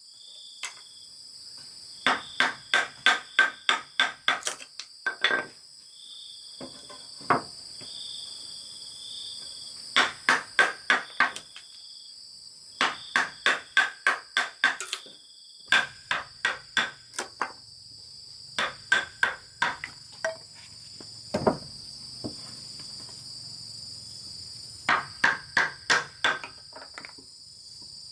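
A chisel being driven into a wooden beam by quick blows from a heavy knife, chopping out a notch. The blows come in runs of about four a second with short pauses between, over a steady high chirring of insects.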